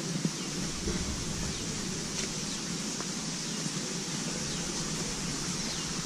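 Outdoor woodland ambience: a steady high hiss with several faint, short bird chirps, over a low rumble of wind on the microphone.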